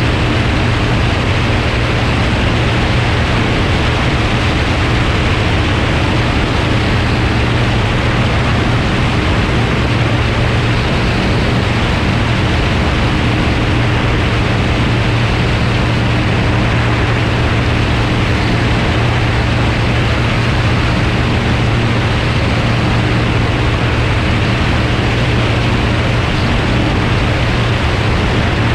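Light single-engine floatplane in level flight: a steady engine-and-propeller drone under heavy wind rush on a camera mounted outside under the wing.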